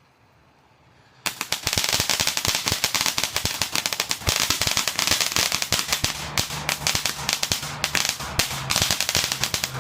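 Fireworks finale: a dense, continuous barrage of firecracker pops and crackles that starts suddenly about a second in.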